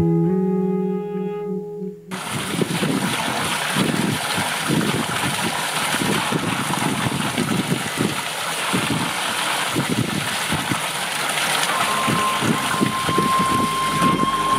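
Instrumental music stops abruptly about two seconds in. Then water pours from the spouts of an Inca stone fountain into its basin in a steady splashing rush. Near the end a single held high note comes in over it.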